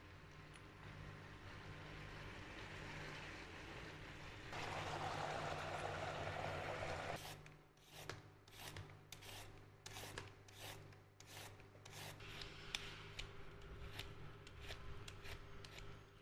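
Pork sizzling in a griddle pan, with a louder hiss for a couple of seconds in the middle. Then a hand-held vegetable peeler scrapes down a carrot in quick repeated strokes, about two a second.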